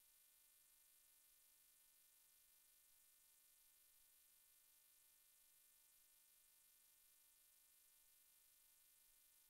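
Near silence: only a faint steady electronic hiss and hum, with no engine or road noise.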